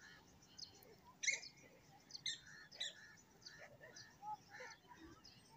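Small birds chirping faintly, a series of short high chirps with a few louder ones about a second in and between two and three seconds in.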